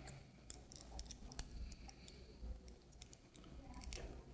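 Faint, irregular small clicks and crackles as the glued skin flap is peeled back from a Laerdal SimMan manikin's arm.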